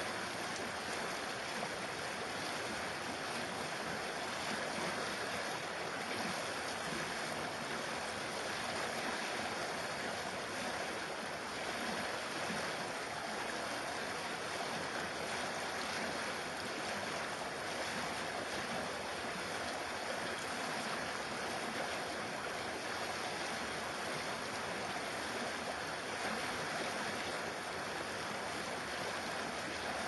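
Shallow stream babbling over a riffle: a steady, even rush of flowing water.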